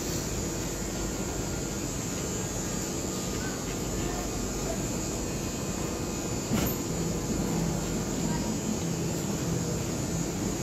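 Steady electrical hum over a constant noise, a little stronger in the second half, with one sharp click about six and a half seconds in.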